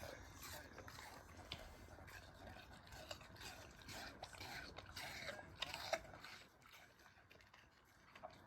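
A golden retriever crunching and chewing pieces of pear, a run of quick crisp crunches that dies down about six seconds in.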